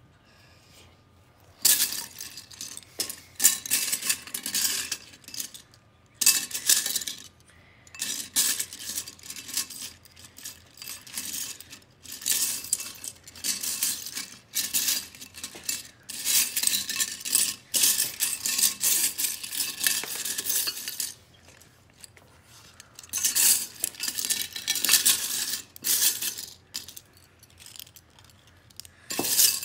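Loose plastic LEGO pieces clattering in a ceramic bowl as a hand rummages through them, in irregular bursts with brief pauses.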